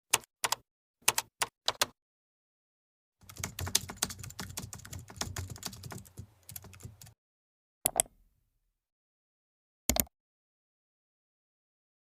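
Computer keyboard typing sound effect. A handful of quick paired clicks comes first, then about four seconds of rapid typing, then three single key clicks about two seconds apart.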